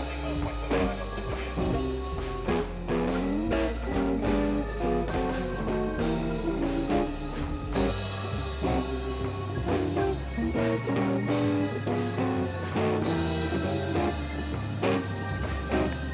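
Background music: a guitar-led blues-rock track with bass and a steady beat.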